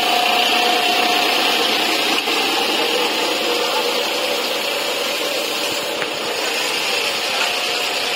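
Industrial mattress tape-edge sewing machine running steadily, stitching binding tape onto the mattress border with a continuous fast mechanical whirr.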